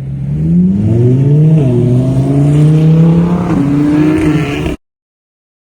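Loud engine revving, its pitch climbing, dipping and stepping up again, then cutting off suddenly near the end; played as the loudest test noise.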